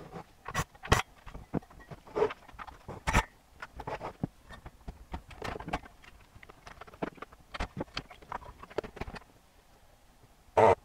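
Irregular clicks, taps and rattles of an AV receiver's amplifier board, ribbon cables and metal chassis being handled. Near the end, a short loud buzz from a Hakko desoldering gun's vacuum pump as it sucks solder from the output transistor pins.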